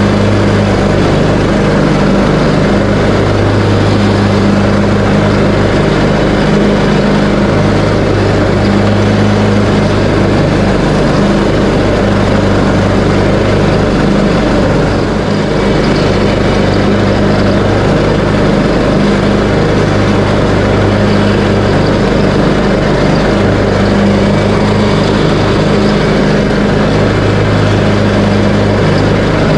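Craftsman T130 riding lawn mower's engine running at a steady speed while mowing, with the deck engaged and cutting dry grass. A constant, even drone with no change in speed.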